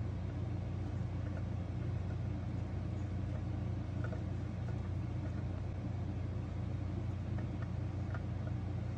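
Steady low background hum, a constant drone with no change in level, with a few faint ticks about four seconds in and again near the end.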